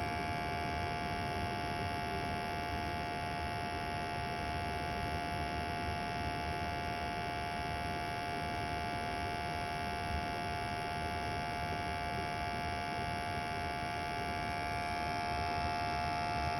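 A 21-year-old gas furnace running steadily: an even hum with a constant high-pitched whine, without a break or change.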